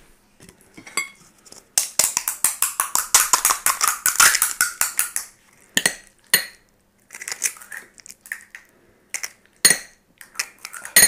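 Spoons clinking and scraping against ceramic bowls and plates as fuchka (pani puri) shells are filled: a quick run of rapid clicks for a few seconds, then scattered single clinks.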